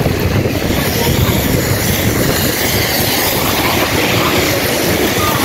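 Steady rushing noise of rain and traffic on a wet city street, with a restless low rumble from wind on the microphone.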